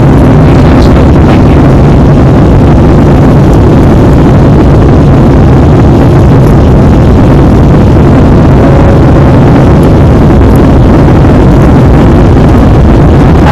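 Jet airliner cabin noise: the engines and the rushing airflow of a plane climbing after takeoff, heard from a window seat as a loud, steady noise with a low hum.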